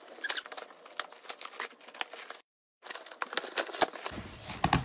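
Scissors cutting along the packing tape and flaps of a cardboard box, with crackling and crinkling of tape and cardboard in quick irregular clicks. The sound drops out completely for a moment about halfway through.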